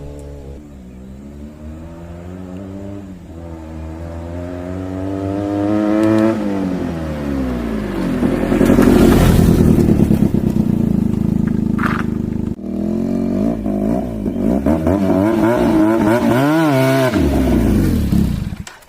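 Benelli TNT 300 parallel-twin engine accelerating, its pitch climbing, then dropping off about six seconds in. It runs loud and rough for a few seconds, climbs again, and falls away near the end.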